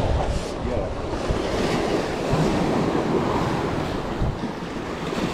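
Surf washing and breaking against the rocks of a jetty, with wind buffeting the microphone.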